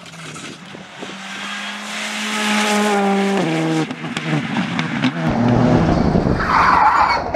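Rally car approaching at high revs, its engine note growing louder, then dropping sharply in pitch about three and a half seconds in as the driver lifts or shifts. It then passes close with a loud rumble and crackling.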